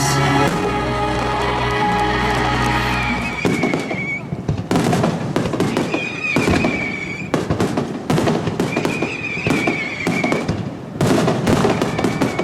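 Fireworks bursting in quick, dense volleys of bangs and crackles, with three drawn-out whistles among them, starting about three seconds in. Before that, music with held chords plays.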